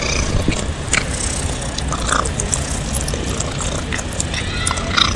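A cat chewing and biting at a sausage held to its mouth, with short wet clicks and crackles of eating and the plastic casing, over a steady low background rumble.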